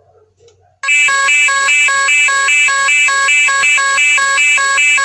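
Electronic emergency-alert alarm tone that starts abruptly about a second in, alternating between two harsh, buzzy pitches about two and a half times a second.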